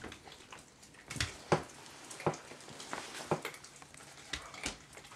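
A nine-week-old puppy chewing a raw chicken wing: irregular wet crunches and sharp clicks of teeth on bone, several spaced a fraction of a second to a second apart.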